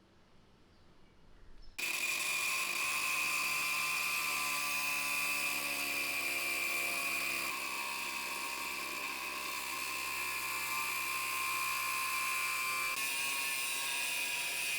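A small high-speed electric motor running with a steady high-pitched whine. It starts abruptly about two seconds in and holds an even speed.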